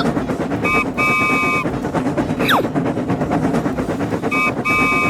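Animated train's horn sounding a short toot then a longer blast, twice, about three and a half seconds apart, over continuous loud music and clatter, with a falling whistle effect about halfway.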